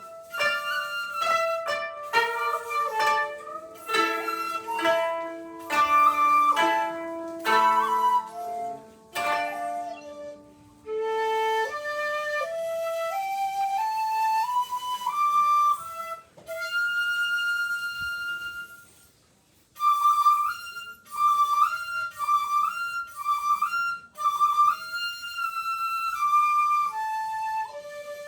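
Koto and shakuhachi duet: for the first ten seconds or so, quickly plucked koto notes. Then a shakuhachi line climbs step by step into a long held high note, and after a short break it plays short repeated notes with small pitch bends.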